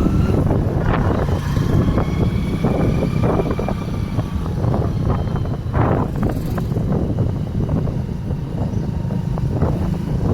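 Motorcycle running along the road, its engine a steady low rumble under heavy wind buffeting on the microphone.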